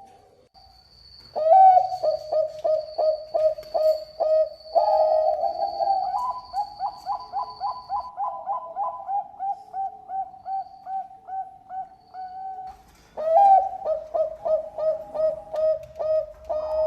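Bangkok-strain zebra dove (perkutut) cooing in two long runs of rapid staccato coos, several a second, each run opening with a louder note; the second run starts about 13 seconds in.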